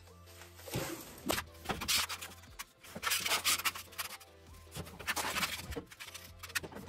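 Flat sheet of galvanized sheet metal handled and slid across a hard floor, giving a few scrapes, over background music.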